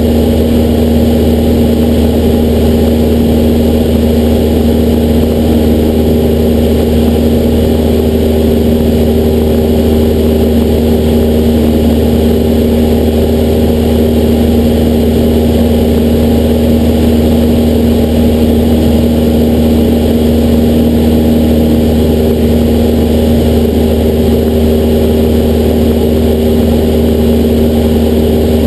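Cessna 172SP's four-cylinder Lycoming IO-360 engine and propeller droning steadily in flight, loud and even with no change in pitch.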